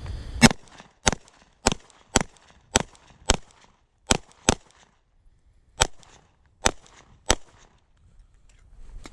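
Eleven semi-automatic gunshots: six in a steady string at about two a second, a pause, then a quick pair and three slower single shots.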